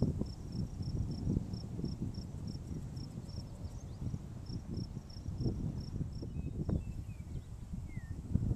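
Wind buffeting the microphone as a low rumble, over an insect chirping in short high pulses about three to four times a second, pausing briefly partway through. A few short bird calls come in near the end.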